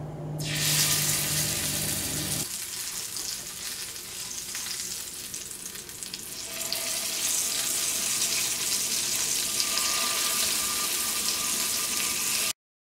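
Hot oil sizzling in a frying pan as small masala-stuffed brinjals are set into it one by one. The sizzle starts about half a second in and keeps up steadily.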